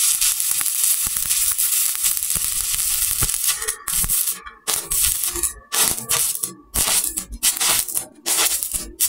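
Shielded metal arc (stick) welding with a 1/8-inch E7018 electrode on a vertical steel plate. The arc crackles and sizzles steadily for about three and a half seconds, then breaks into short sputtering bursts with brief gaps.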